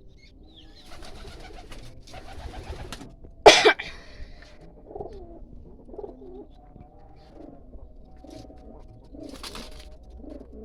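Pigeons cooing, a string of short low coos, with a loud sharp flap or knock about three and a half seconds in.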